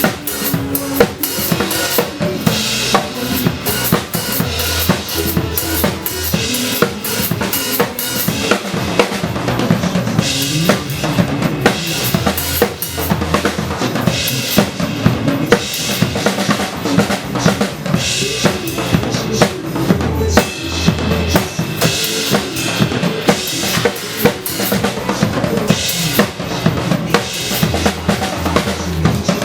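Drum kit played live over a pop-song backing track during an instrumental passage: a steady beat of kick drum and snare, with cymbal washes recurring every few seconds.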